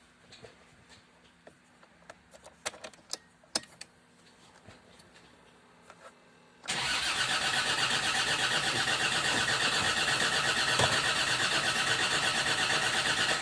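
A few faint clicks, then the starter motor of a Land Rover Discovery II TD5's five-cylinder turbodiesel cranks the engine with a steady, rapid pulsing for about seven seconds and stops abruptly. The engine does not run on. The starter now turns over after a new fuse box/BCU was fitted and the immobiliser cleared, where before there was no crank.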